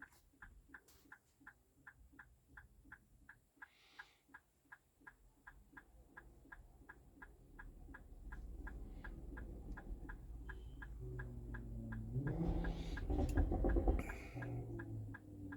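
Hazard-light flasher of a 2020 Infiniti QX60 ticking steadily, about three ticks a second. In the second half a louder low rumbling and handling noise rises over the ticking.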